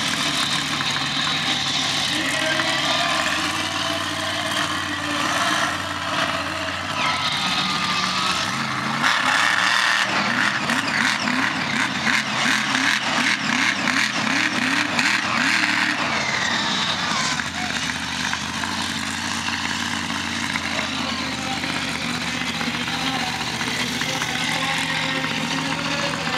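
Monster truck engine revving hard, the revs rising and falling repeatedly from about ten to sixteen seconds in, over a steady arena din and a voice.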